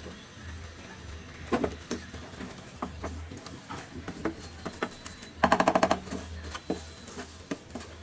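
A spatula scraping and knocking against a nonstick pan while thick milk-powder dough for burfi is stirred, in scattered clicks and scrapes. A little past halfway comes a quick run of rapid clattering taps, over a steady low hum.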